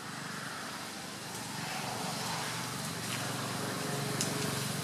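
Steady vehicle engine noise with a low hum that grows louder in the second half, with a few faint clicks.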